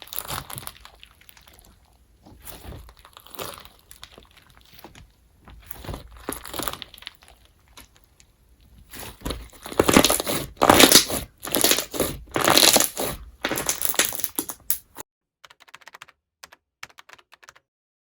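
Crunch slime, a glossy glue slime packed with foam beads, being squeezed and pressed by hand, giving bursts of crackling, popping crunches. The loudest run of squeezes comes in the second half, then it drops to a few faint crackles and stops.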